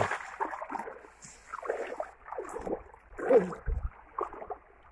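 Shallow seawater sloshing and splashing in uneven strokes as a person wades through it, dragging a long mesh bag of shells alongside.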